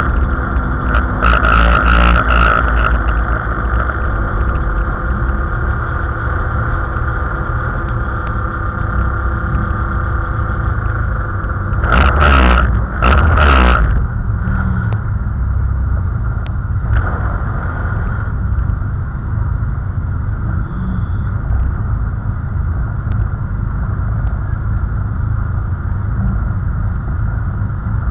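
Race car engine running at idle, heard from inside the stripped cabin, with two short louder bursts: one about a second in, the other about twelve seconds in.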